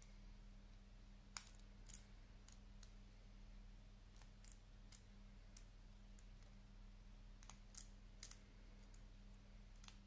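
Combination padlock's number wheels being turned by thumb during decoding by feel, giving about a dozen faint, irregular clicks over a steady low hum.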